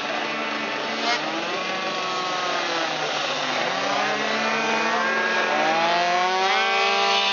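Several racing scooter engines running hard on a track, their pitch falling and rising as they brake for corners and accelerate out of them, with a short sharp crack about a second in. Near the end one engine's pitch climbs steeply as it accelerates.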